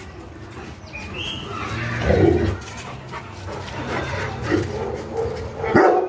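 A dog barking in a few separate barks, the loudest about two seconds in and again near the end.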